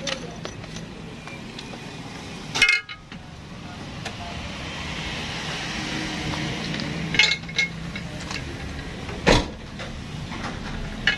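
Vehicle noise with a steady low hum that swells and fades through the middle, broken by three sharp knocks about a quarter, two thirds and five sixths of the way in.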